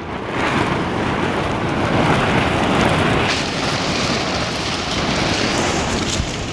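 Wind storm gusting hard, a loud steady rush that swells about half a second in.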